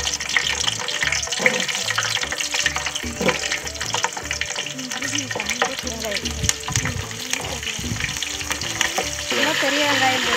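Hot oil sizzling and crackling in a large aluminium pot as green chillies and whole spices fry, with many fine pops. A background music beat runs underneath.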